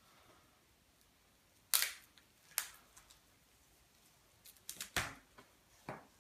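A few sharp clicks and knocks: a loud one about two seconds in, another shortly after, a quick cluster near five seconds and one more just before the end.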